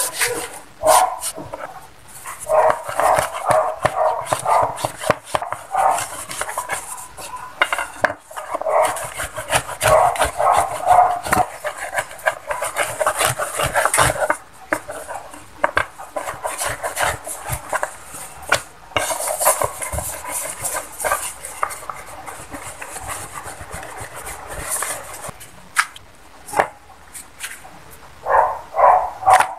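Thin wooden dowel rolling pin rolling and rubbing over a flour-dusted wooden board as egg-noodle dough is pressed flat, in irregular back-and-forth strokes with short pauses.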